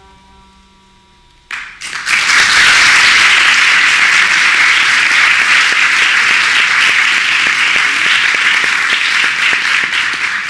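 The last santur notes ring out and fade, then audience applause starts suddenly about one and a half seconds in and carries on loudly and steadily.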